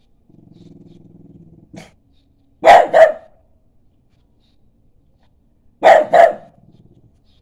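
French bulldog growling low, then barking: a short huff, two sharp barks in quick succession, and another pair of barks about three seconds later, followed by a faint growl.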